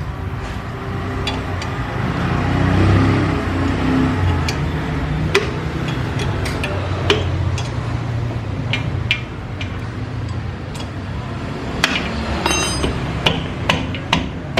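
Metal hand tools clinking and knocking against steel suspension parts, about a dozen sharp separate clicks with a short ringing rattle near the end, over a steady low hum.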